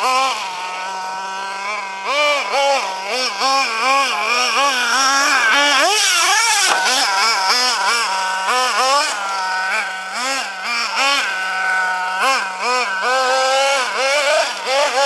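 Nitro RC truggy engine idling and being blipped: the pitch climbs and drops back in quick throttle stabs about twice a second, with one longer, higher rev about halfway through. The engine was running lean from a fuel-pressure fault in the tank and fuel lines.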